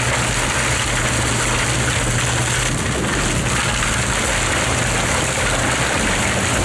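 Heavy machinery running steadily under load: a constant low hum with a dense, hissing wash of noise over it.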